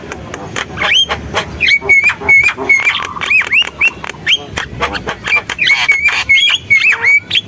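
Javan myna (jalak kebo) singing a busy, varied song: rapid harsh clicks and chatter mixed with many short whistled notes that rise and fall.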